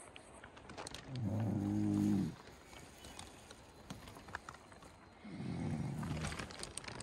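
A person snoring: two long snores about four seconds apart, the first louder, with light rustling of fabric.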